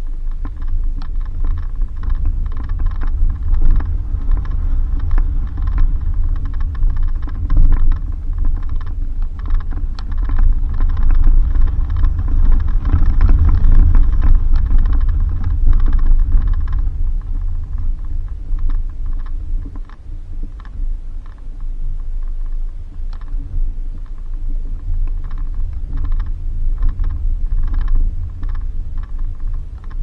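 Suzuki Jimny driving on a rough dirt road: a steady low rumble with quick, irregular rattling and clicking. It is loudest and busiest for the first half, then eases a little past halfway.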